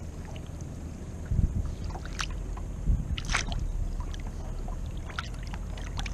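Water splashing as a striped bass is let go over the side of the boat: a dull knock about a second and a half in, then two short splashes, over a low steady rumble of wind on the microphone.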